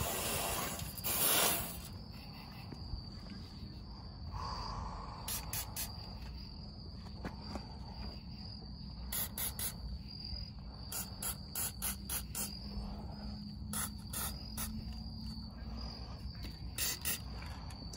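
Crickets trilling steadily, with short hissing spurts from an aerosol can of Fluid Film rust-proofing spray applied through a straw to a truck's door hinges, including one longer, louder spray about a second in.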